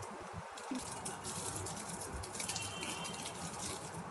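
Plastic packaging rustling and crinkling in the hands as small wrapped crochet items are handled, with many short crisp crackles over a steady hiss.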